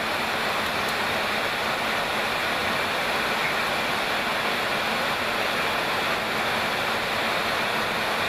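Steady jet engine and airflow noise of an E-3 AWACS in flight, an even rushing noise with a faint underlying hum.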